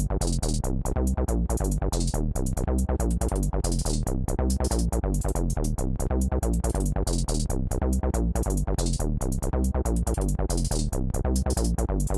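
Background electronic music with a steady, fast drum-machine beat.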